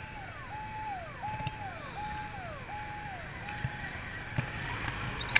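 An electronic alarm sounds a repeating tone that holds and then slides down in pitch, about once every three-quarters of a second, and fades out about four seconds in. Street traffic noise runs underneath.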